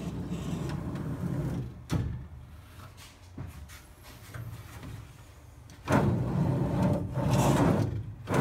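Polycarbonate enclosure door rolling along metal drawer slides with a rumble, stopping with a knock about two seconds in. After a quieter stretch it slides again, louder, from about six seconds in.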